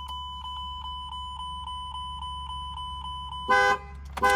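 2014 Lincoln Navigator's anti-theft alarm going off after the door was unlocked with the key: the warning chime beeps about four times a second, then the horn sounds twice near the end.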